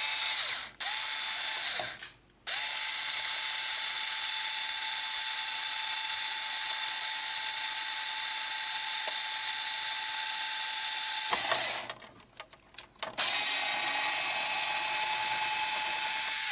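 A small 4-volt electric screwdriver, used as a drill, whirring steadily as it bores through the thick polycarbonate RC truck body. It runs in stretches: two short bursts, then one long run of about nine seconds that stops, then it starts again near the end.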